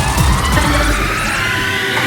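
Electronic dance music at a breakdown: the kick drum drops out and a rising sweep climbs steadily, over a low bass that fades out just past halfway.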